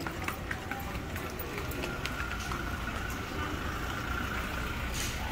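An SUV driving past on a cobblestone street, its engine and tyres making a steady low rumble.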